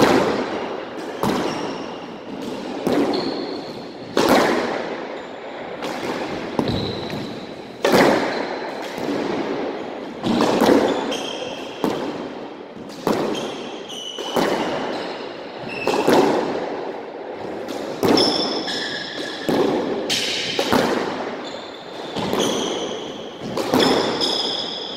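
Squash rally: the ball cracking off rackets and the court walls about once a second, each hit echoing in the enclosed court, with sneakers squeaking on the hardwood floor between hits.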